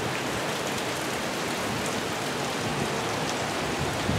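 Heavy rain pouring steadily onto a flooded paved parking lot and parked cars: an even, unbroken hiss.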